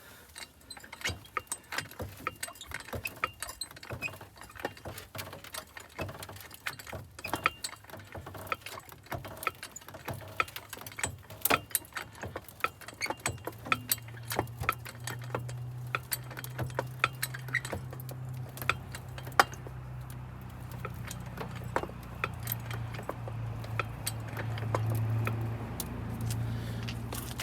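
Porta power hydraulic ram being pumped up against the bent bus door frame: many irregular sharp metallic clicks and ticks. About halfway through, a low steady hum comes in and grows louder toward the end.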